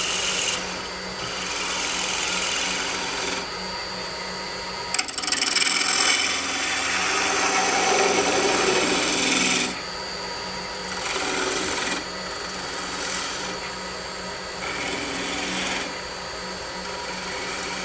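Wood lathe running with a steady hum while a gouge cuts spalted maple mounted off-centre for multi-axis turning, a hissing, rasping scrape of the cut in several separate passes. The longest, loudest pass begins about five seconds in and lasts nearly five seconds, with shorter ones before and after.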